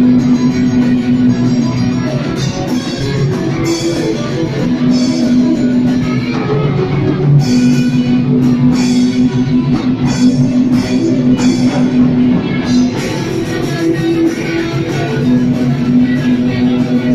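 Live rock band playing loud: electric guitars and a drum kit, with long held notes and frequent cymbal hits.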